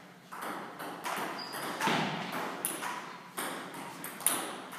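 Table tennis rally: the celluloid ball clicking sharply off bats and table in a steady back-and-forth, about one hit every three-quarters of a second.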